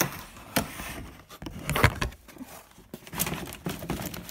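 Cardboard box and packaging being handled and pried open by hand: a few sharp knocks and scrapes, the loudest about two seconds in, then a dense crackly rustle near the end.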